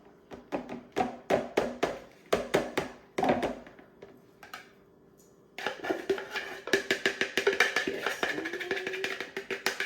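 Background music: a run of sharp percussive taps over a held low note, a short lull about four seconds in, then a fuller, busier rhythmic passage from about halfway.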